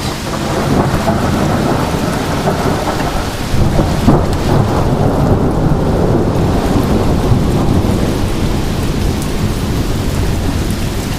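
Heavy wind-driven rain in strong straight-line storm winds, with low, deep wind noise buffeting the microphone. The noise swells briefly about four seconds in.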